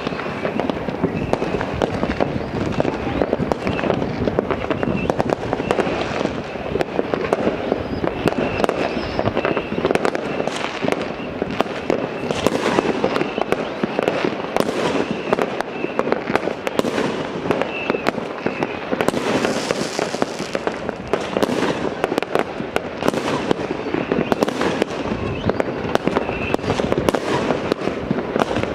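Dense, unbroken crackling and popping of many fireworks and firecrackers going off at once around a town, with no pause.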